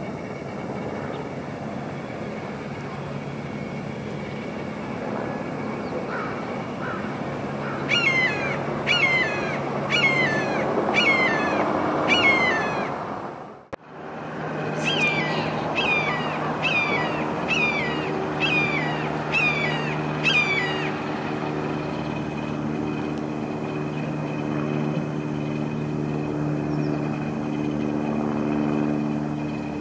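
Red-shouldered hawk giving loud, repeated downslurred screams, about one a second: a run of five, then after a brief break a run of seven. A steady low engine drone runs underneath.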